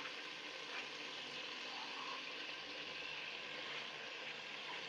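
Aloo gobi (potato and cauliflower) cooking in a pot with a little added water to soften it, giving a steady, even hiss of simmering.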